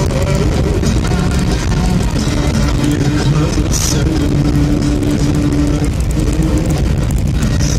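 Mini Cooper driving at steady speed, heard inside the cabin: a continuous low rumble of tyres, wind and engine with a steady drone.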